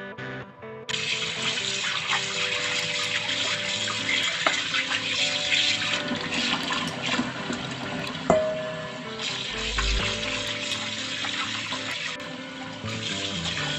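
Tap water running into a plastic bowl of raw chicken pieces as they are rinsed and rubbed by hand, starting about a second in, with one sharp knock a little past the middle. Guitar background music plays underneath.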